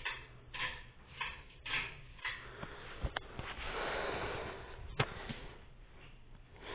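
Older 52-inch Hampton Bay Huntington ceiling fan running on low speed: faint, soft whooshes of moving air, with two sharp clicks.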